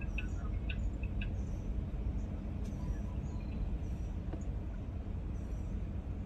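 Car engine idling, a steady low rumble heard from inside the cabin, with faint bird chirps now and then.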